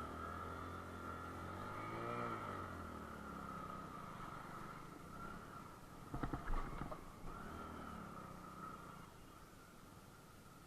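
Motorcycle engine running and revving, rising and falling in pitch about two seconds in, then easing off. A quick cluster of knocks and rattles comes about six seconds in.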